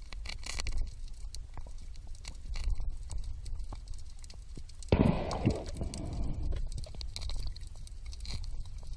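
Underwater sound: a steady crackle of many small clicks over a low rumble. About five seconds in comes one short, loud rushing noise that fades over a second or so.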